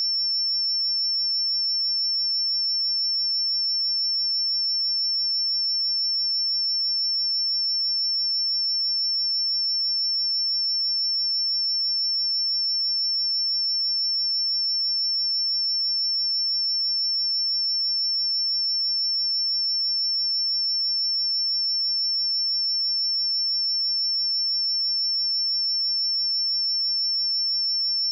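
A steady, unbroken 5403 Hz sine-wave test tone: a single high-pitched pure tone at a constant level.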